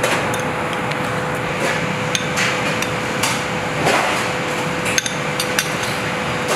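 A metal spoon clinks and taps against porcelain bowls as diced tuna is spooned out, a scatter of short sharp taps. Under them runs a steady whoosh of commercial-kitchen ventilation with a constant hum.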